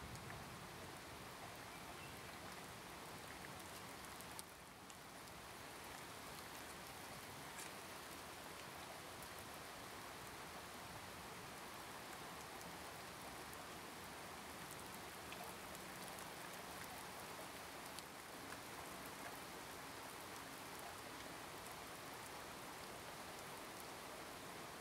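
A steady, soft hiss with faint scattered ticks, dipping briefly about four and a half seconds in.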